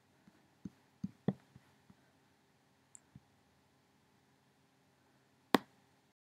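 Scattered computer clicks over a faint steady hum: a loose run of clicks in the first two seconds, two more about three seconds in, and one louder click about five and a half seconds in.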